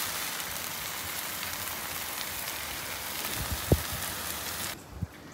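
Shaved ribeye, peppers and onions sizzling on a Pit Boss Ultimate Griddle's flat top under a bun set on to steam, a steady hiss. A soft thump comes about three and a half seconds in as the bun is pressed down by hand, and the sizzle cuts off suddenly near the end.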